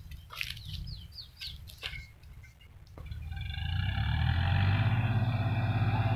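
Sonalika tractor's diesel engine running steadily with a reaper. It cuts in sharply about halfway and grows louder over the next second or so. Before that, a bird gives a few short falling chirps.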